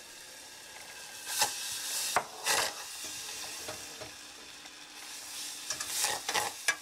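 A wooden spoon stirs and scrapes thick plum butter in a small stainless-steel saucepan over a gas flame as the butter melts. It comes in several scraping strokes, the loudest in the first few seconds and again near the end, over a steady hiss.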